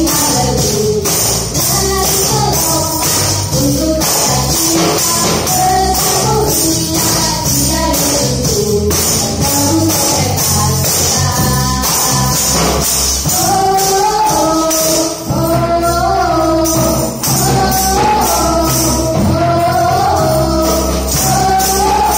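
A worship song with a singing voice plays, while hand tambourines jingle and are struck in time with the beat.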